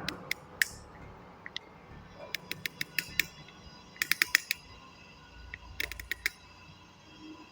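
Ratchet wrench clicking as its pawl slips over the gear teeth. A few single clicks come first, then three quick runs of about half a dozen clicks each.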